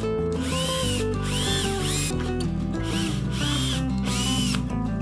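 Cordless drill boring small holes in plywood with a thin twist bit, in about five short bursts. The whine of each burst rises and then falls in pitch.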